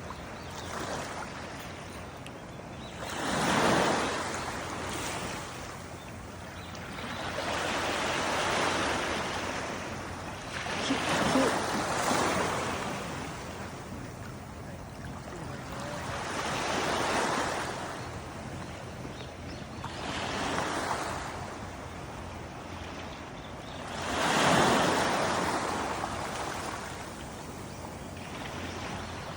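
Sea waves washing in on the shore, each swell of surf rising and falling away every few seconds.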